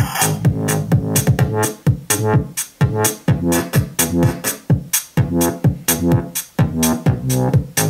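Bugani M90 portable Bluetooth speaker playing an instrumental electronic hip-hop beat loudly, with a drum machine's steady kick and snare hits under a bass and synth line.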